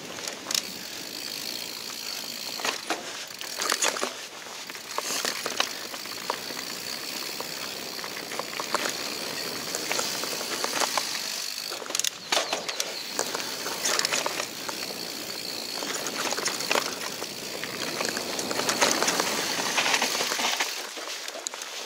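Mountain bike descending dry dirt singletrack: a steady noise of tyres running over the dirt, broken by frequent sharp rattles and knocks as the bike hits bumps.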